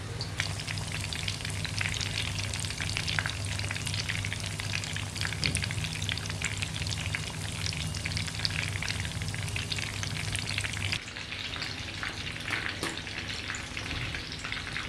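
Mutton koftas frying in hot oil in a kadai over a low flame: a steady, dense crackle and bubbling of the oil. A low steady hum runs underneath and drops out about eleven seconds in.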